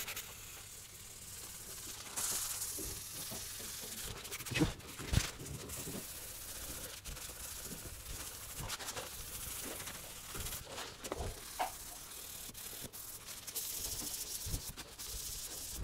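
Hand abrasive pad rubbed quickly back and forth over a car's painted panel, a faint, steady rasping hiss with a few soft knocks: the paint is being scuffed matt so the new paint will adhere.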